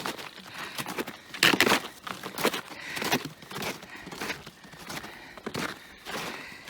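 Hiker's footsteps on a mountain trail: irregular crunching steps, the loudest about one and a half seconds in.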